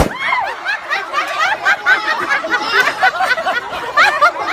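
A balloon bursts with one sharp pop, squeezed between two people, followed by several people laughing in high, rising-and-falling voices.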